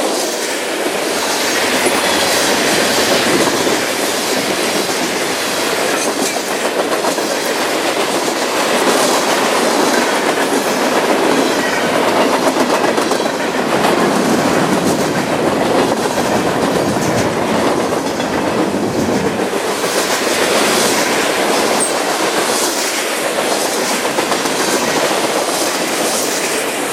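Freight train cars rolling past at close range, with a steady clatter of steel wheels over the rail joints.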